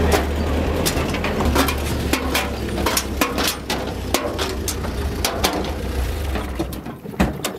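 UAZ Bukhanka van driving over a bumpy meadow: a low engine rumble with frequent knocks and rattles from the body and load. The rumble drops away about a second before the end.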